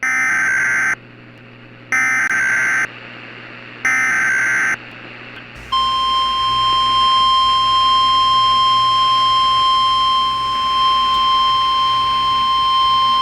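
Emergency Alert System SAME header: three roughly one-second bursts of warbling digital data tones about two seconds apart. About six seconds in, the NOAA Weather Radio warning alarm follows, a single steady 1050 Hz tone that holds without a break. Together these signal the start of a weather alert broadcast.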